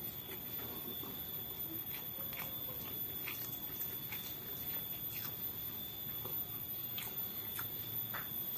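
Close-up eating sounds: a person chewing, with irregular wet smacks and small clicks, over a steady faint high-pitched tone.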